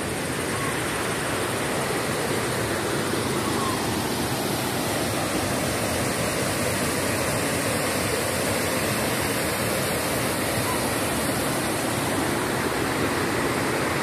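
Steady rushing of a tall waterfall, an even hiss of falling water with no pauses.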